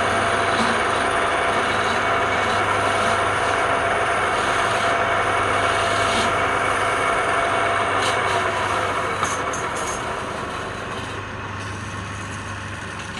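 A motor vehicle's engine running steadily with a constant low hum. It grows gradually quieter over the last few seconds.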